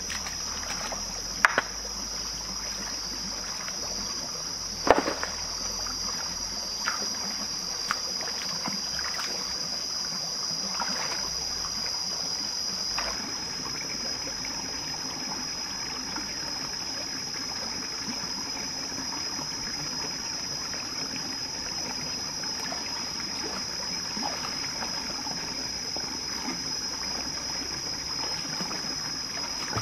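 Shallow rocky stream trickling, under a steady high-pitched insect drone. A few sharp knocks on stone sound over it, the loudest about one and a half and five seconds in.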